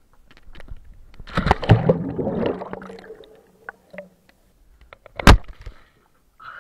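Water splashing and sloshing close to the camera, with a single sharp, loud smack about five seconds in.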